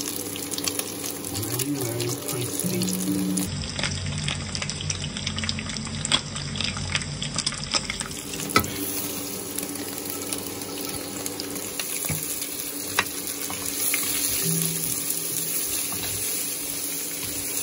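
Beef and bone pieces frying in oil in a nonstick pot, a steady sizzle, with a wooden spatula stirring and knocking against the pot now and then, sharpest about eight and a half and thirteen seconds in.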